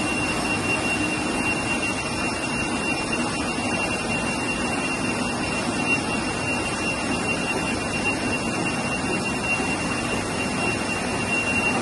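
Heidelberg Speedmaster CD 102 sheet-fed offset press running, a steady even machine drone with a constant high-pitched whine over it.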